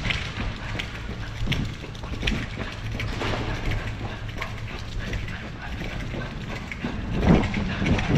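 Footsteps and mechanical clicking at a walking pace, roughly one click a second, over a steady low rumble.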